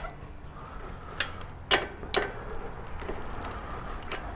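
A few sharp, separate metallic clicks from a socket wrench working the fork's triple-clamp pinch bolts loose, three clear ones in the second and third seconds and fainter ticks after.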